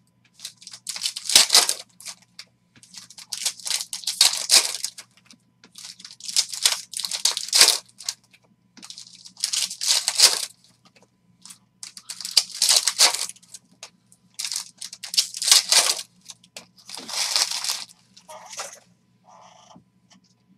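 Foil wrappers of basketball trading-card packs being torn open and crinkled by hand, in about eight crackly bursts a couple of seconds apart.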